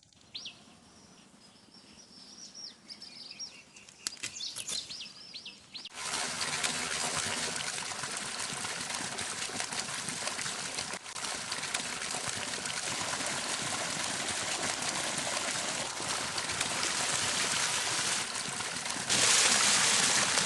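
A few faint bird chirps, then about six seconds in water starts running steadily, louder near the end, as a whole chicken is washed.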